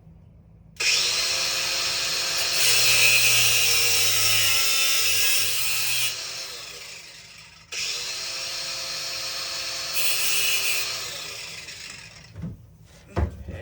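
Handheld electric power tool cutting or grinding a metal part held in a vise, run in two bursts of about five and four seconds; each time it is switched off the motor winds down with a falling whine.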